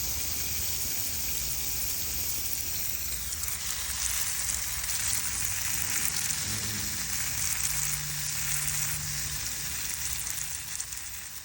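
Steady outdoor hissing noise with no clear events, fading out near the end.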